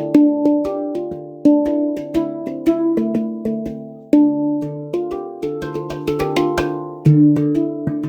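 Instrumental background music: a melody of short, sharply struck notes that die away, over a light, even beat.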